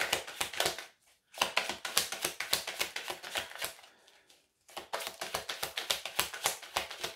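A deck of oracle cards being shuffled by hand: a rapid run of card clicks and slaps that pauses briefly twice.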